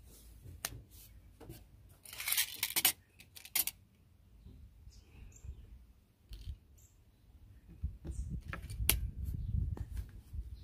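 Handling sounds of a 3D-printed single-shot tray and a .22 pellet being fitted into an air rifle's receiver: scattered small clicks and scrapes of plastic on metal, with a loud scraping rasp about two seconds in and a shorter one a second later. Low rubbing handling noise and a sharp click come near the end.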